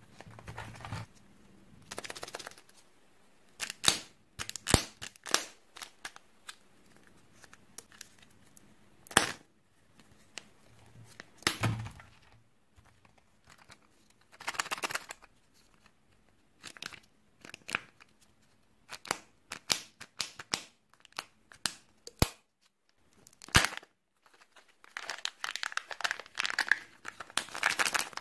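Kinder Joy plastic eggs handled in short separate crackles and clicks with pauses between, then near the end a dense stretch of crinkling and tearing as one egg's wrapper seal is peeled open.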